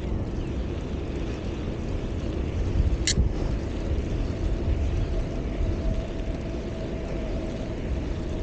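Steady low rumble of wind on an action camera's microphone while cycling, with a short high-pitched chirp about three seconds in and a faint steady hum from about halfway on.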